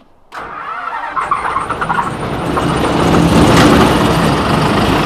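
A street sweeper's rear motor starting up a moment in, then running and growing louder for a few seconds before settling to a steady run.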